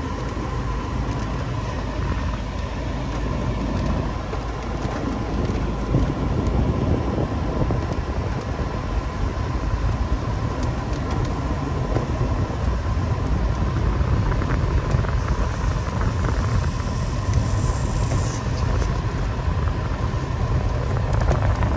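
Steady road noise inside a moving car's cabin in heavy rain: low tyre rumble, with raindrops ticking on the windshield.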